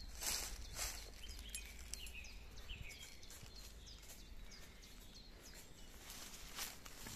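Small birds chirping faintly a few times in the first half, with a few rustling footsteps on dry leaf litter at the start and near the end.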